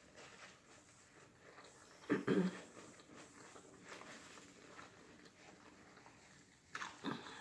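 A person eating close to the microphone: soft chewing and mouth noises, with a short, loud, low vocal sound about two seconds in and another brief burst near the end.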